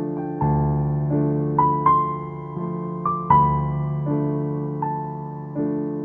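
Slow, gentle piano music: notes and chords struck roughly every three-quarters of a second, each fading before the next.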